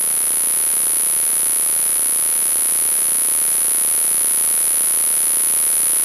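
Steady static hiss with a constant high-pitched whine, the self-noise of a low-quality action camera's recording. No engine or other distinct sound stands out above it.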